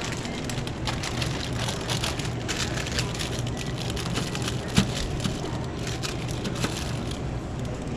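Rustling, crackling handling noise full of small clicks, with one sharper click a little past the middle, over a steady low hum.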